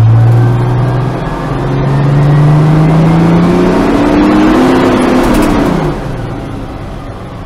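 Engine of a 1982 American LaFrance fire engine accelerating, heard from inside its cab: after a brief dip about a second in, its pitch climbs steadily for several seconds, then falls and quiets about six seconds in.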